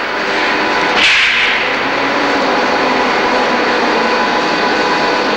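Steady roar of factory-hall machinery with a faint hum in it. A loud hiss rises about a second in and dies away over the next second.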